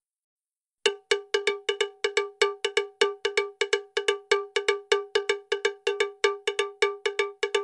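Rapid, evenly pitched bell-like strikes, about five a second, in a looping rhythm. Silent for almost the first second, then the strikes start abruptly.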